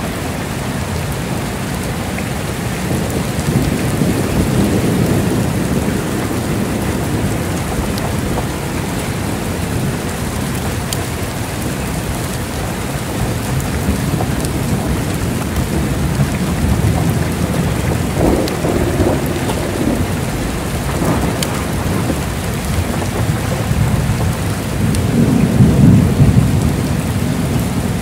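Heavy rain falling steadily, with low rolls of thunder swelling and fading several times, the loudest near the end.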